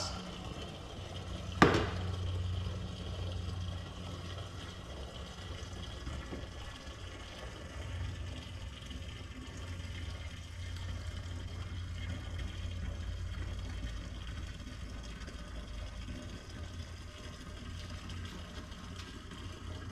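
Old gasoline draining from a car's fuel tank into a gas can, a steady pour that keeps running. A single sharp knock comes near the start.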